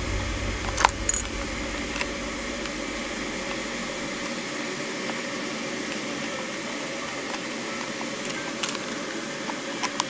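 A metal rhinestone shoe buckle clinking and rattling as a leather shoe latchet is worked through it by hand. A few sharp clicks come about a second in, again a second later and near the end, over a steady low background hum.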